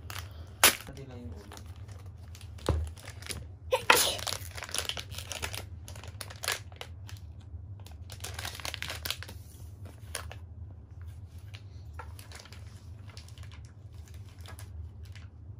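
Plastic toy blind-bag torn open and its wrapper crinkled in the hands. Several sharp rips come in the first four seconds, then steady crinkling, which gives way to lighter rustling after about ten seconds.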